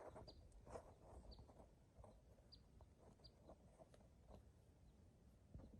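Near silence with a small bird giving short, high chirps, each dropping slightly in pitch, roughly one or two a second, over a faint low rumble.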